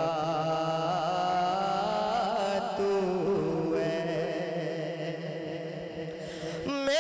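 A male naat reciter sings long, held notes with a wavering, ornamented pitch through a microphone and PA, over a steady low drone. The singing falls slightly in volume past the middle and comes back stronger near the end.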